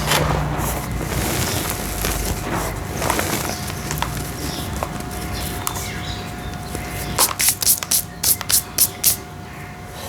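Dry red brick-dirt shapes crumbling, a grainy crackle of breaking clumps and falling grit. About seven seconds in comes a quick run of about nine crisp crunches as pieces snap apart.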